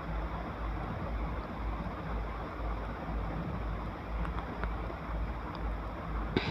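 Steady background noise with a low, unevenly pulsing rumble, and one short click near the end.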